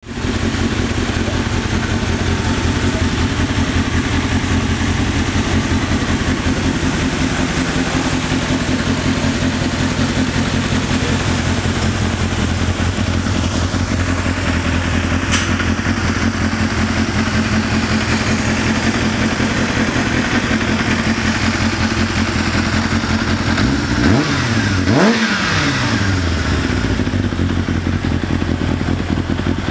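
Kawasaki ZXR750 inline-four motorcycle engine idling steadily through an aftermarket Akrapovič silencer, blipped twice in quick succession a little over 20 seconds in before settling back to idle.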